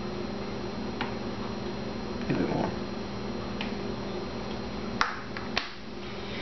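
Squeezed plastic dish-soap bottle squirting soap into a spray bottle: a brief squelch about two and a half seconds in, then two sharp plastic clicks about five seconds in, over a steady background hum.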